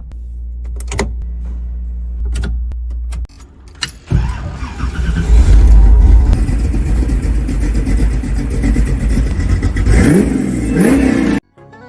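Car engine running, with a few sharp clicks in the first seconds. It gets louder about four seconds in, revs near the end and cuts off abruptly.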